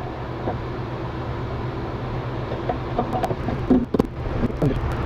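Greased aluminium rear axle bearing carrier of a Honda 400EX being slid by hand into the swingarm housing: scattered metal clicks and a few sharper knocks start about three seconds in as it goes home. A steady low hum runs underneath throughout.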